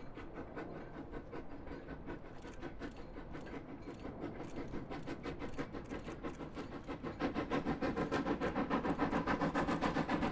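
Lancashire & Yorkshire Railway Class 21 'Pug' 0-4-0 saddle tank steam locomotive working hard with a short goods train. It gives a steady, regular chuffing of exhaust beats, which grows clearly louder from about seven seconds in as the engine draws near.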